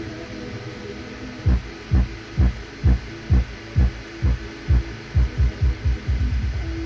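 A song played through a speaker behind a low-pass filter board, so only its bass comes through: a low hum, then from about a second and a half in, deep bass thumps about twice a second, coming faster near the end.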